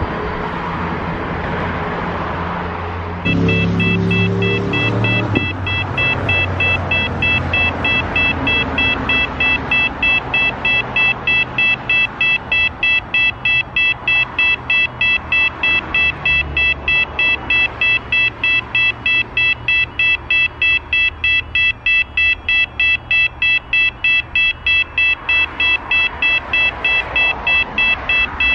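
A low engine rumble for the first three seconds, then a railway level crossing warning bell rings: an electronic chime of several fixed high tones pulsing steadily about twice a second, over a faint low rumble.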